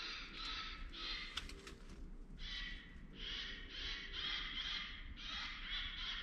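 A night insect chorus, most likely katydids or crickets: a steady high-pitched trilling that pulses about four to five times a second and breaks off briefly in the middle. A few faint rustling clicks come about a second and a half in.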